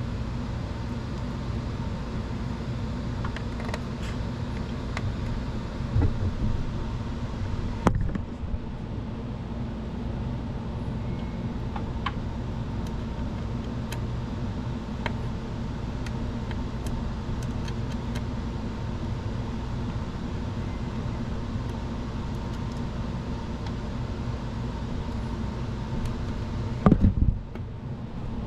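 Steady low mechanical hum throughout, with a few sharp clicks and knocks of screws and a screwdriver as a replacement power supply is screwed into a 3D printer; the loudest knocks come about six and eight seconds in and a brief clatter near the end.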